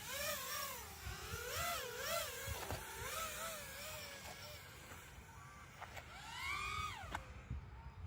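5-inch FPV miniquad with Mr. Steele Silk brushless motors and Ethix props flying at a distance: its motors whine and waver up and down in pitch as the throttle changes. About six seconds in there is one louder swell that rises then falls as it passes.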